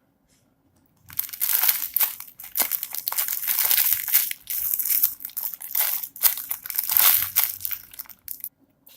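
Plastic wrapping crinkling and crumpling as it is handled. It starts about a second in and goes on unevenly for about seven seconds.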